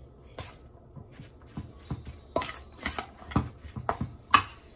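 Metal spoon scraping and clinking against a stainless steel bowl while stirring a thick chopped-meat-and-fish stuffing: a run of irregular strokes that grow louder, the loudest near the end.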